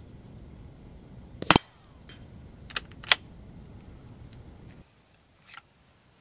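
Shots from a suppressed CZ 457 Royal .22 LR rifle hitting a hanging steel plate target. A loud metallic clang with a short ring comes about a second and a half in, followed by smaller clinks. Two more sharp cracks come about three seconds in.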